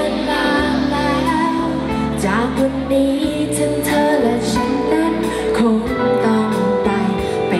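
Live pop band playing, a woman singing lead over bass and drums.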